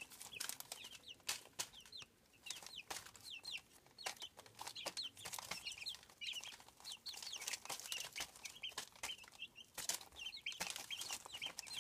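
A small group of 20-day-old chicks peeping: many short, high chirps that fall in pitch, coming in quick runs, with scattered light taps.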